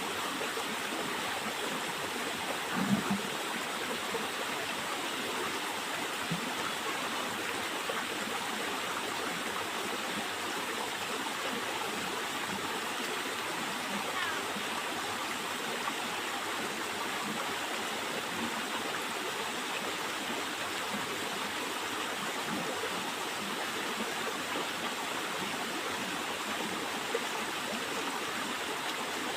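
Steady rushing of flowing water, as of a stream, running evenly throughout, with a brief low knock about three seconds in.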